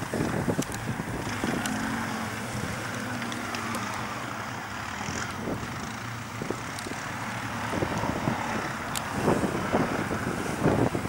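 Quad bike (ATV) engines running in the distance, with a steady drone and an irregular crackle, mixed with wind noise on the microphone.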